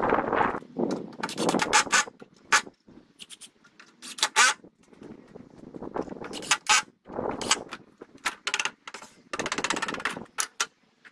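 A mallet knocking pallet-wood boards into a bench frame: a series of sharp, uneven wooden knocks, some closely spaced, with boards clattering and scraping as they are handled during the first two seconds or so.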